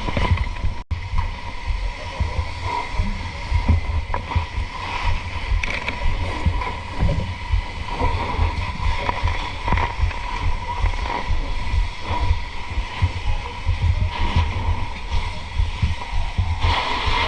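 Fire truck engine running with a steady whine, heavy wind buffeting the microphone, and scattered voices.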